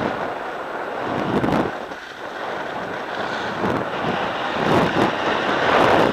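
Wind rushing over an action camera's microphone while sliding down a packed-snow ski slope, with the hiss of snow under the rider swelling and easing several times, loudest near the end.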